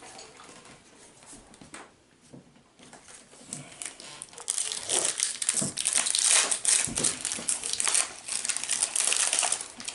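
Foil Pokémon booster pack wrapper crinkling as it is handled, faint at first and then dense and loud from about halfway in.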